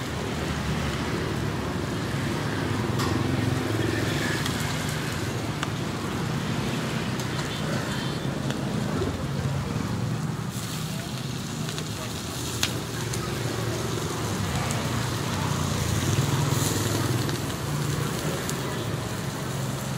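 Busy roadside cooking ambience: steady road traffic swelling and fading, a few sharp crackles from the wood fires under the woks, and voices in the background.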